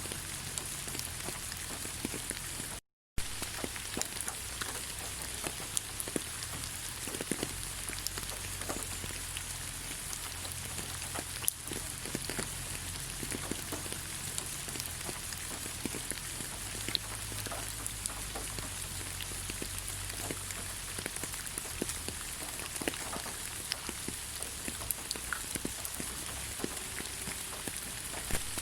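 Steady rain falling on leaves: an even hiss with many separate drops tapping. The sound cuts out completely for a fraction of a second about three seconds in, then resumes.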